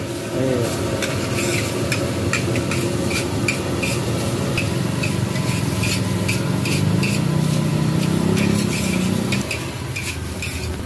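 Metal spatula scraping and clanking against a large steel wok, about two strikes a second, over the steady sizzle of fried rice and noodles being stir-fried.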